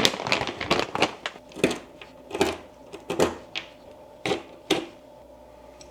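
The last few nuts being shaken out of their container, clattering in a dozen or so irregular sharp clicks.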